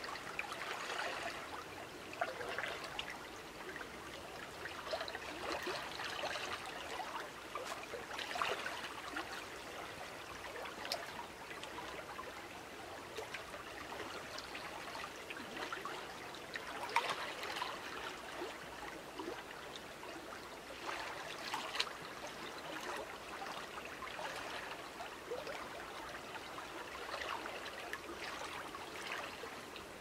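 River water flowing past the bank: a steady rush of moving water that swells and eases a little, dotted with small splashes and gurgles.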